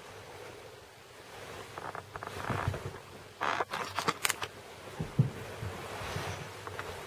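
Duvet rustling and camera handling noise as a Bengal cat clambers over the bedding, with a quick cluster of clicks and knocks about three and a half seconds in and a short low thump about five seconds in.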